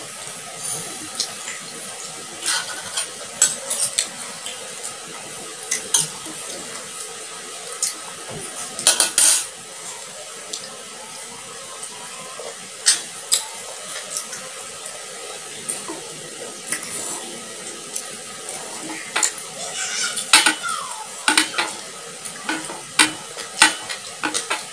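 Close-up eating sounds of raw shrimp and rice eaten by hand: chewing and wet mouth smacks, with irregular sharp clicks and small taps of fingers and food on the plates.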